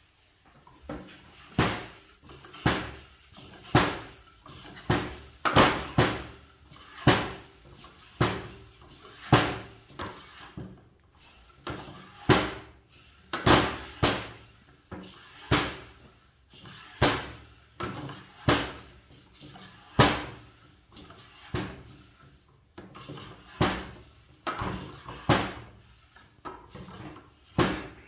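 Floor-standing track pump being worked by hand to inflate a child's bike tyre: a steady rhythm of pump strokes, about one a second, each a sharp rush of air with a knock from the piston.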